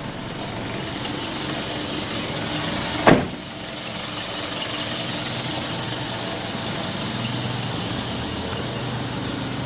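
A car door shut once, a sharp knock about three seconds in, over steady background noise.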